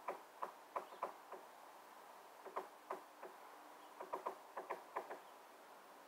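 Woodpecker pecking into the wooden eave of a shed: sharp single knocks in short irregular runs, a few a second, with pauses between.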